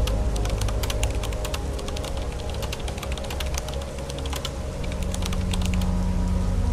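Raindrops tapping on a car's windshield and roof as dense, irregular sharp ticks that thin out about two-thirds of the way in, over soft background music of sustained tones.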